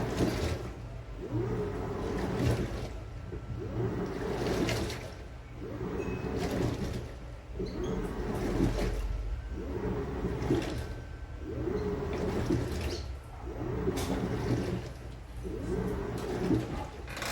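Samsung 17 kg washing machine in a wash cycle: the motor whines up and down with each turn of the drum, about once a second, while water sloshes and swirls inside.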